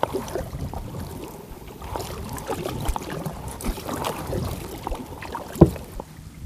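Kayak paddles dipping and splashing in calm sea water in uneven strokes, with one loud knock near the end.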